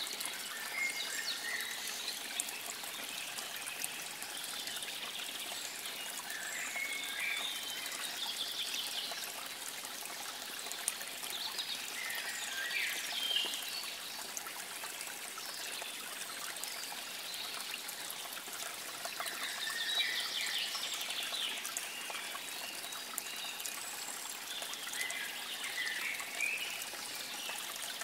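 Steady trickle of running water, like a small stream, with birds chirping briefly over it every few seconds.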